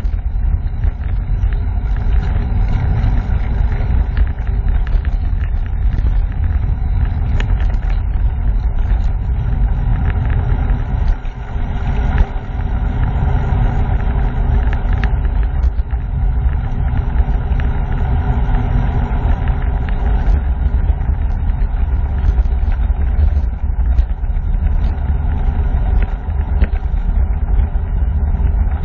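Wind buffeting the microphone of a camera mounted on a moving bicycle: a steady low rumble that eases briefly about eleven seconds in.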